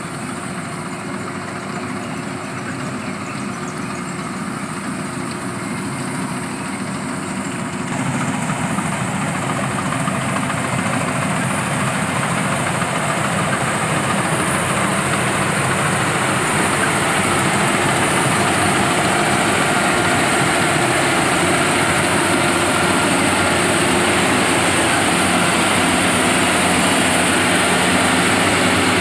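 Engine of a rice-harvesting machine running steadily, growing a little louder about eight seconds in.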